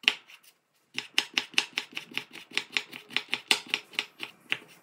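Kitchen knife chopping a raw potato on a wooden cutting board, the blade knocking the board. One knock, a short pause, then fast, even chopping at about five strokes a second from about a second in, stopping just before the end.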